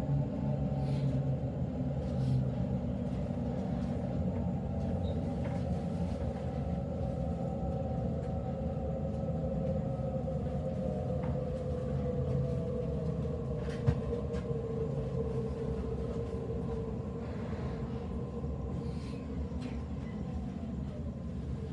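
Inside a Waratah B-set electric train carriage running: a steady low rumble from the wheels on the rails, with a motor whine that slowly falls in pitch as the train slows toward a station. A single sharp click comes about two-thirds of the way through.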